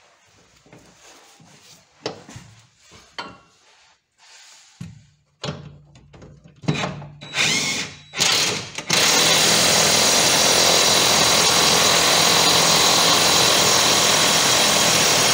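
Cordless power tool tightening the inner pivot bolt of a car's rear suspension arm: a few short trigger bursts, then running steadily and loudly from about nine seconds in until it stops at the end, driving the bolt as tight as it will go.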